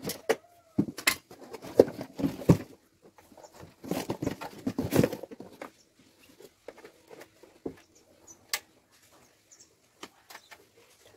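Cardboard box rustling and cables clattering as a small inverter welding machine is taken out and set down on concrete, with a run of irregular knocks and scrapes in the first half and a few sharp clicks later.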